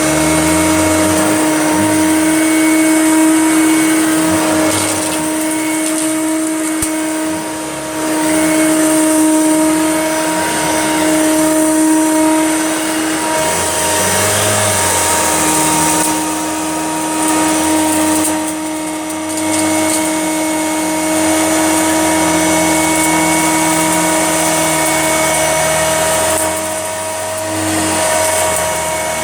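Hoover Junior upright vacuum cleaner running steadily over piles of dog hair and dirt, its motor giving a constant whine while a lower tone rises and falls as the load on it changes.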